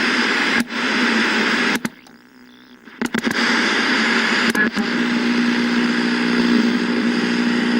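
Television static hiss broken by sharp switch clicks, as a set is tuned between channels. About two seconds in it cuts nearly to quiet for a second, then the static returns, joined near the middle by a steady low buzz.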